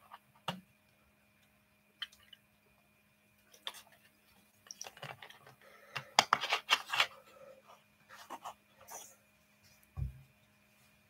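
Handling and drinking from a plastic Coca-Cola bottle: scattered short clicks and rustles, busiest about six seconds in, with a dull thump about ten seconds in.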